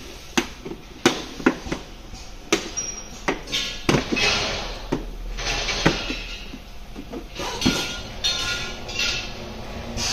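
Sharp plastic knocks and clicks as a scooter's front body panel is pushed and tapped into place by hand, about eight knocks spread irregularly, with rubbing and rustling of hands sliding over the plastic in between.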